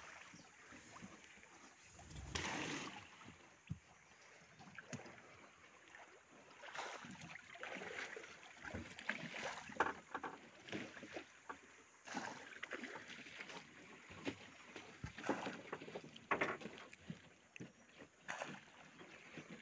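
Small boat sitting on calm water, with soft lapping at the hull and irregular knocks and rustles of things being handled on board.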